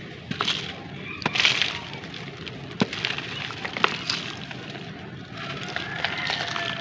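Dry sand-cement lumps crushed and crumbled by hand, with gritty crunching bursts and a couple of sharp cracks as pieces snap, bits dropping into a shallow dish of water. Toward the end, a steady gritty crumbling as a handful of the material is worked down into the water.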